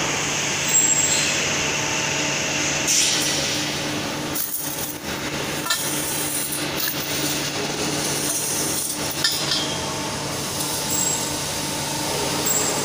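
Steady hum of a hydraulic punching machine's power unit, with several clanks and scrapes of punched steel square tubes being handled against it.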